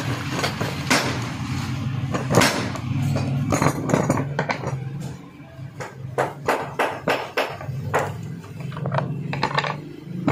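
Irregular metallic clinks and knocks of a starter motor's armature and drive pinion and steel tools being handled and set down on a wooden workbench, the knocks sharper and more separate in the second half, over a low hum.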